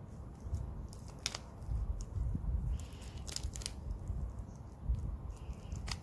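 Plastic layers of a mirror-blocks cube being turned by hand: a few sharp clicks as the layers snap into place, spaced irregularly, over a low rumble of handling noise.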